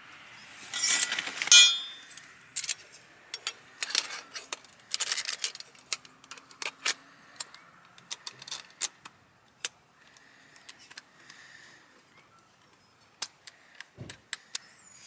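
Small metal parts clinking and rattling as they are handled, in dense flurries for the first few seconds and then as scattered sharp clicks, with a dull thump near the end.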